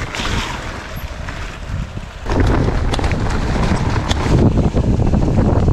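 Wind rushing over the bike-mounted camera's microphone as a mountain bike rolls down a leaf-covered forest trail, with tyre noise and small rattles and clicks from the bike. The noise grows much louder about two seconds in.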